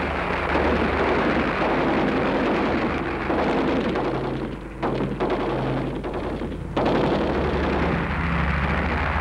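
Low-flying Lancaster bomber's piston engines droning, with rapid machine-gun fire rattling over them. It dips briefly a couple of times near the middle.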